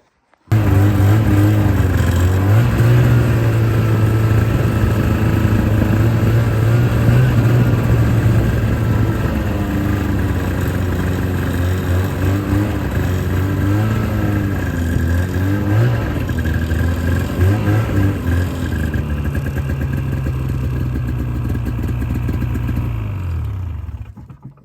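Small off-road vehicle engine running under way, its pitch rising and falling with the throttle, most in the middle stretch. It comes in abruptly about half a second in and dies away shortly before the end.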